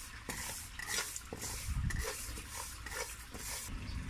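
Raw rice grains being stirred and tossed with a spatula in a dry, honeycomb-textured stainless wok while they toast, a rustling scrape with each stroke at about two to three strokes a second, stopping near the end.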